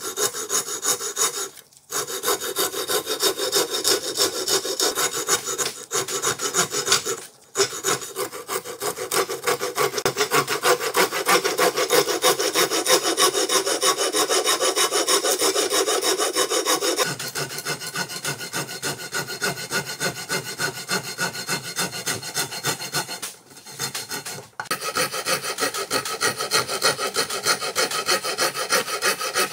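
Hand rasp cutting a wooden screwdriver handle clamped in a vise: quick, steady back-and-forth rasping strokes, with a few brief pauses.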